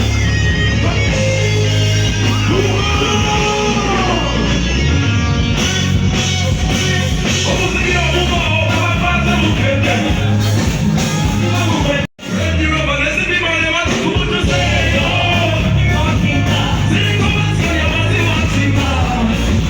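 A live band playing amplified music through a PA with a sung vocal line over a steady beat, as at a concert sound check. The sound cuts out for an instant about twelve seconds in.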